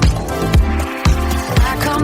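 Instrumental dance-pop music with a steady kick drum about twice a second under a held bass line and synth melody.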